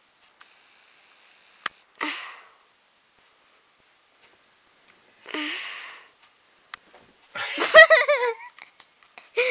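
Stifled human laughter: two short breathy snorts through the nose, then a louder wavering burst of giggling about seven to eight seconds in.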